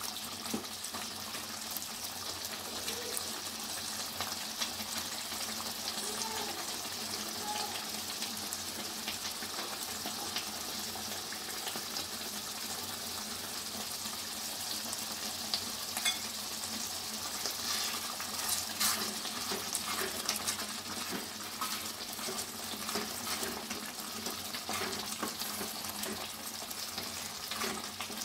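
Chopped tomatoes sizzling and bubbling in oil in a frying pan as they cook down in their own juice for tomato thokku, with a spatula stirring and scraping, heard as scattered clicks over a steady hiss.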